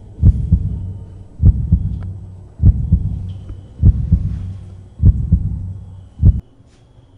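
Slow, deep heartbeat sound effect: paired lub-dub thumps repeating about every 1.2 seconds, six beats, over a low hum. The beats stop abruptly near the end.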